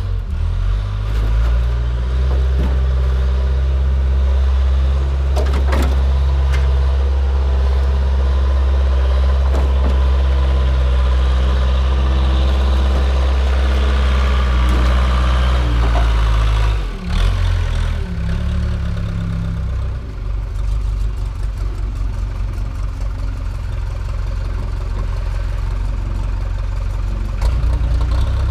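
Case 580 backhoe's diesel engine running hard and steady under load, with a few sharp knocks, then dropping abruptly about two-thirds of the way through and carrying on lower and more unevenly.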